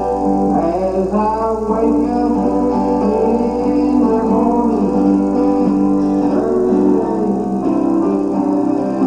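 Gospel song playing: guitar with a singing voice.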